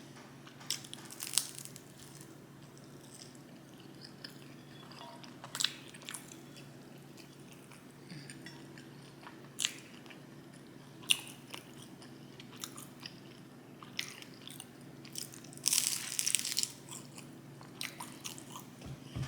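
A person chewing food close to the microphone, with sharp crisp crunches and bites every few seconds and a longer crunchy stretch about sixteen seconds in.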